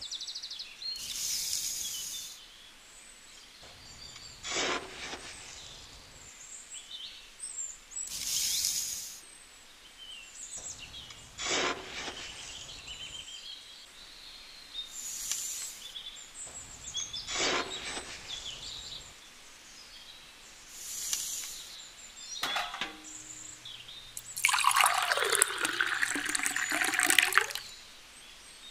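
Dry sand and cement scooped with a small spoon and tipped into a miniature mixer drum, a short rustle several times over. Near the end, water poured from a small bucket into the drum for about four seconds, the loudest sound; faint bird chirps behind.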